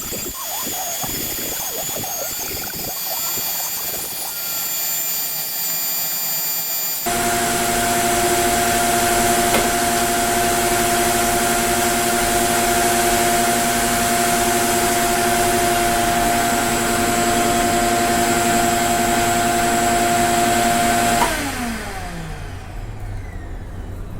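Electric shop machinery motor running with a steady whine. About seven seconds in, a louder motor starts abruptly and runs evenly. Near the end the motors are switched off and spin down, the pitch falling away.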